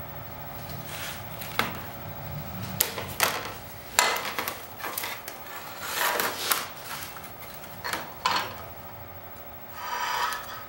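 Handling noise: a plexiglass sheet and a metal combination square set down, slid and tapped on a metal table saw top, a string of sharp knocks and short scrapes, the loudest about four seconds in. Near the end comes a longer rubbing as a line is marked along the square.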